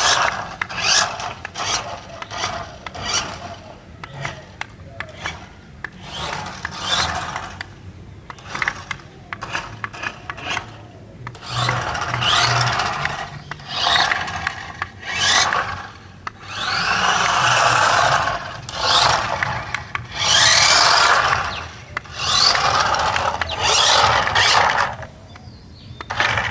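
Remote-control toy car running in repeated short spurts, its small electric motor whining up in pitch with its wheels scraping and rubbing on the surface.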